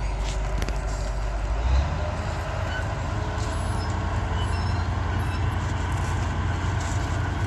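Heavy engine running steadily with a low rumble, picking up speed about two seconds in.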